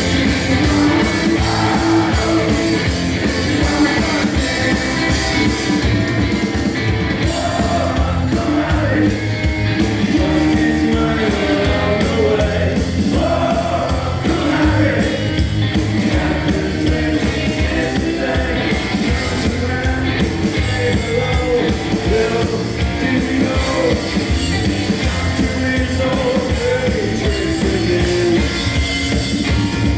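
Live rock band playing: a male lead vocal over hollow-body electric guitar and drums.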